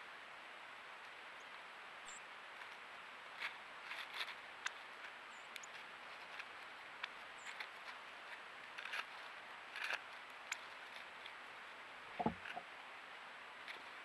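Northern cardinal and sparrow feeding at a wooden tray feeder: scattered small clicks and taps from seed and feet on the tray and dry leaves, over a steady hiss. There are a few faint high chips early on and one louder knock about twelve seconds in.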